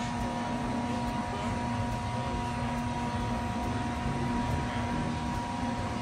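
Steady mechanical drone with a few constant tones and a low rumble, as from a fan or motor running nearby.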